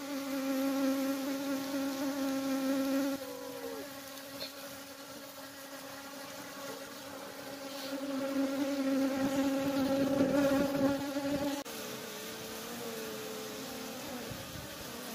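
Honeybees buzzing, a steady hum that is loud for the first three seconds and again from about eight to eleven seconds, then drops suddenly to a fainter, wavering buzz.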